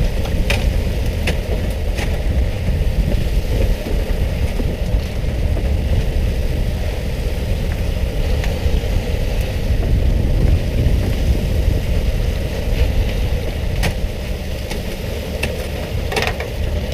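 Fishing boat's engine running steadily under a hiss of splashing water spray beside the hull, with a few sharp knocks now and then.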